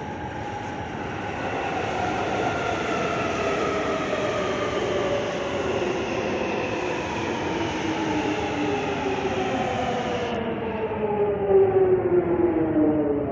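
Jubilee line 1996-stock Tube train pulling into the platform, its traction motors whining in several tones that fall steadily in pitch as it slows to a stop, over a steady running noise.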